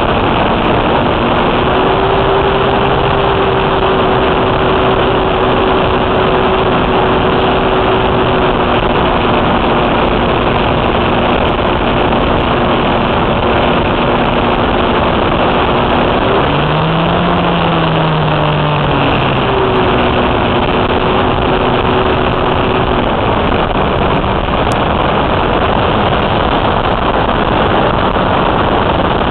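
Small model-airplane engine running steadily in flight under heavy wind rush on the onboard microphone. About 16 seconds in the engine note drops sharply for three seconds, as the throttle is pulled back, then picks up again, and near the end it sinks into the wind noise.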